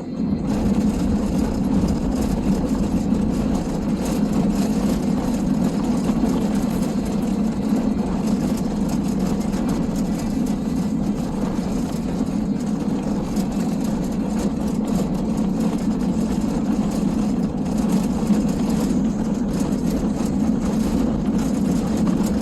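Steady rumble of a car being driven: engine and road noise heard at an even level, with no speech or music.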